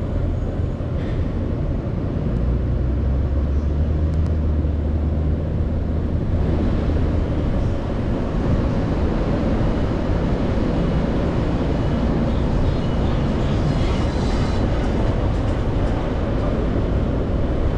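Steady low rumble of a car driving slowly along a city street, engine and tyre noise, with a deeper hum between about two and six seconds in.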